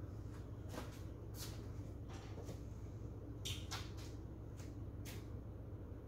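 Sears Roebuck 42-inch bottom-mount spinner ceiling fan running with a steady low hum, with several sharp, irregularly spaced clicks over it.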